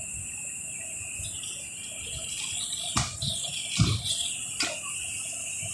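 Gas escaping from the open valve of a small LPG cylinder and burning as a jet of flame: a steady high hiss with a whistle in it. A couple of short knocks about three to four seconds in.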